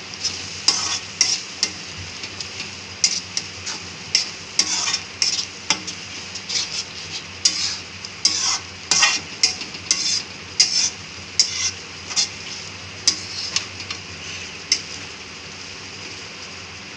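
Metal spoon scraping and clinking against a steel kadai in irregular strokes as a thick tomato-onion masala is stirred, over a steady sizzle of frying in oil. The masala is being fried until the oil separates.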